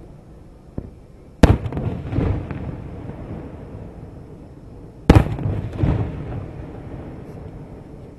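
Two aerial firework shells bursting, about three and a half seconds apart, each a sharp bang trailing off in a rolling echo.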